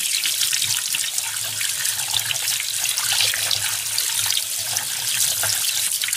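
Tap water running in a steady stream, splashing over a metal wristwatch and a hand into a ceramic washbasin.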